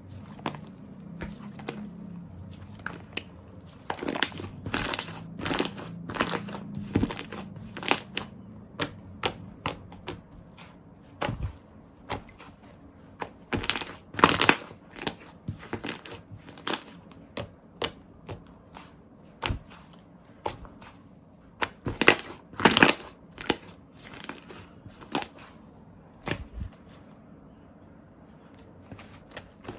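Slime being squished and poked by hand, giving irregular sticky pops and clicks that come in clusters and then thin out toward the end.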